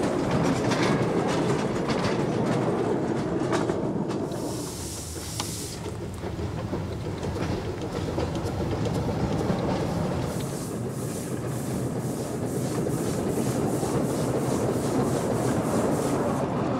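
Small narrow-gauge steam locomotive running on light rails, with a steady rattle from its wheels and train. A brief hiss of steam comes about four seconds in, and in the second half a quick regular beat sets in at about three or four strokes a second.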